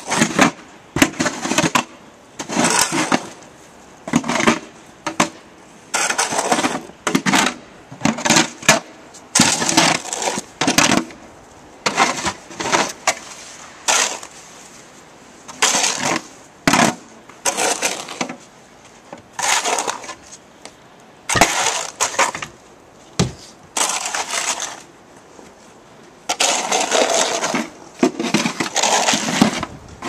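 Snow shovels scraping and pushing snow along a sidewalk, in short strokes about once a second, with a longer run of scraping near the end.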